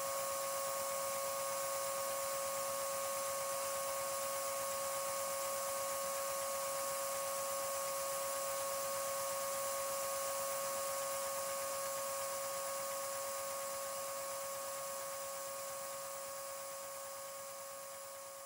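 Vacuum cleaner drawing air through a hose to drive a LEGO Technic vacuum engine with oscillating pistons: a steady high whine over an airy hiss. It fades gradually over the last several seconds.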